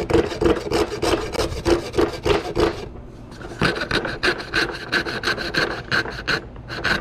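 Hand coping saw cutting a cope into MDF baseboard, quick back-and-forth strokes about three to four a second, the blade biting on the downstroke. The pitch of the blade's buzz steps higher about halfway through as the cut follows the profile.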